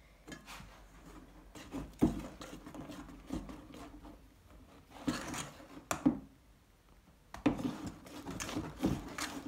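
Metal spoon stirring shaving foam into glue in a stainless steel bowl: irregular scrapes and clinks of the spoon against the bowl, with a short still pause past the middle.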